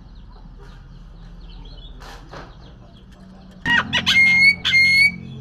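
Pet myna (jalak) calling: faint chirps at first, then about two-thirds in a loud burst of harsh calls, ending in two longer, clear-pitched calls.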